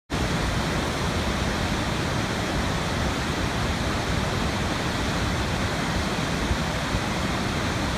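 Rushing floodwater: a steady, loud, unbroken wash of water noise that starts abruptly.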